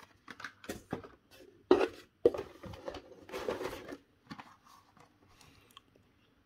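Hot Wheels blister-pack cards being handled: the cardboard backing and plastic blister rustle and crinkle, with sharp taps and clicks as one card is set down and the next is picked from the cardboard box. The handling is busiest in the first four seconds, then only faint taps.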